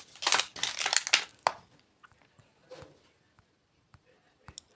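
Plastic component packaging crinkling as it is handled for about a second and a half, ending in a sharp click, followed by a few faint taps.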